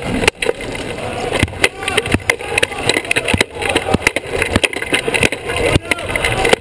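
Sports wheelchair rolling and turning on a hardwood gym court, heard from a camera mounted on the chair: a steady rumble of the wheels, short squeaks of rubber tyres on the floor, and many sharp knocks and clacks.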